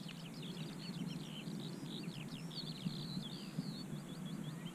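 Birds singing in a faint, busy run of quick high chirps and twittering notes, over low steady outdoor background noise.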